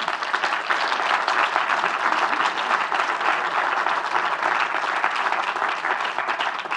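Audience applauding steadily: many people clapping at once, the sound starting abruptly and fading out just after.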